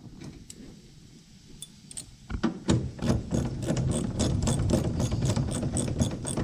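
Ratchet tool clicking rapidly and steadily, about six clicks a second, as a fastener is run down; it starts about two seconds in.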